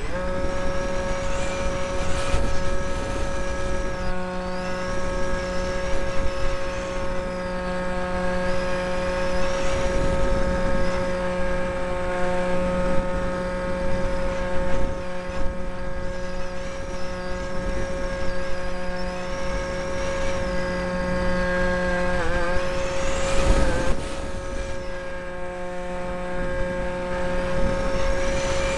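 Electric motor and propeller of a small RC model plane heard from an onboard camera, a steady high whine with rushing wind on the microphone. The pitch wavers briefly about two-thirds of the way through, then steadies again.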